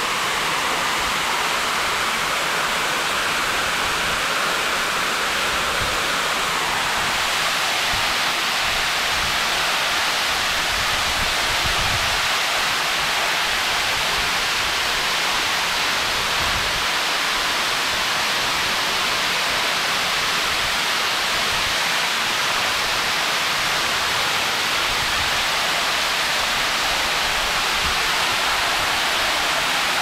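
Fast-flowing water rushing steadily with a strong current. Its tone shifts slightly about seven seconds in.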